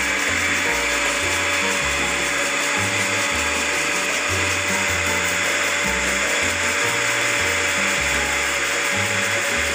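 Electric countertop blender running steadily while oil is drizzled in through its lid, emulsifying egg white, garlic and lemon into a garlic sauce.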